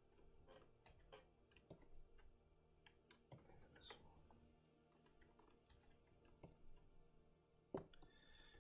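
Faint, irregular clicking and tapping of computer input at a desk, a keyboard and pointing device worked in quick scattered strokes, with one sharper click near the end, over a low steady hum.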